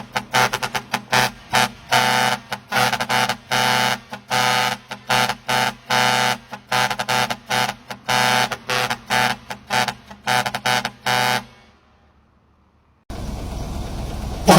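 Large multi-trumpet air horns sounded in a fast rhythmic pattern of short pitched blasts, several a second, over a low steady hum. The blasts stop about three seconds before the end, and after a moment of near silence a low rumbling noise starts.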